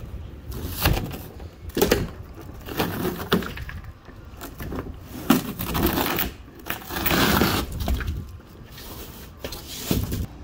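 Thin 1/8-inch luan plywood roof decking being torn up by hand from the styrofoam core of a motorhome roof. It comes up as a series of irregular cracking, splintering rips, the longest about seven seconds in.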